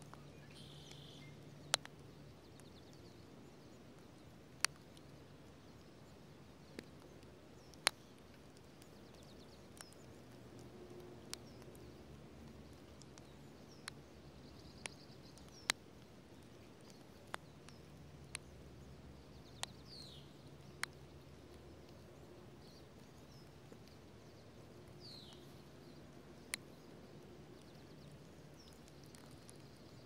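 Raindrops ticking sharply and irregularly on the phone and the dry leaves around a ground nest, roughly one every second or two, over a faint steady hum. A few faint high bird chirps, including two short falling notes in the second half.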